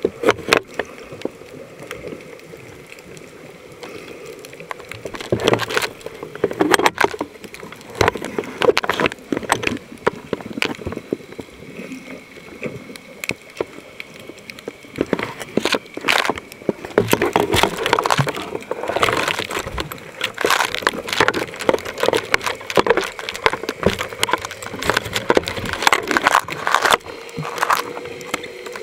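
Water sloshing and gurgling against a camera held underwater among swimming snorkelers, with many sharp clicks and knocks from moving water and the housing. A faint steady hum comes in near the end.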